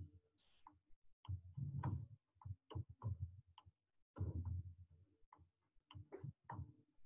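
A person breathing slowly and deeply: two long breaths about three seconds apart, with faint, irregularly spaced clicks between them.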